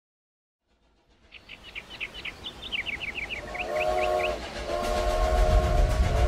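Steam locomotive sound: after a second of silence and a run of high chirps, a steam whistle blows twice, the second blast held long, over a low rumble that grows louder.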